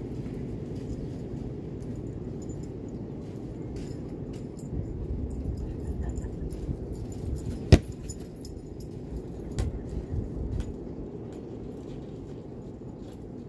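Steady low rumble of wind on the microphone, with light scattered clicks and one sharp click about eight seconds in.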